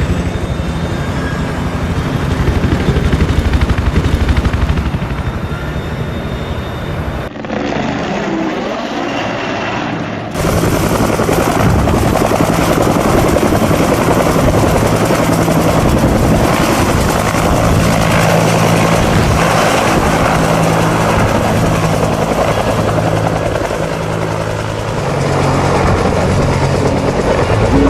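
Helicopter rotor and engine running steadily, a loud low hum that changes abruptly at cuts about seven and ten seconds in.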